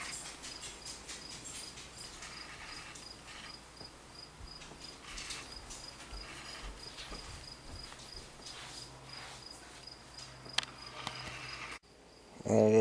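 A cricket chirping steadily, a short high-pitched chirp about three times a second.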